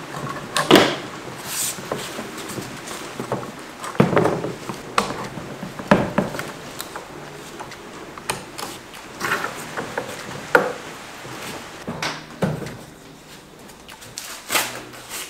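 Small metal bar clamps and spring clamps being set and tightened along a fibreglass mould flange against wooden battens: irregular clacks, knocks and short scrapes of metal and wood.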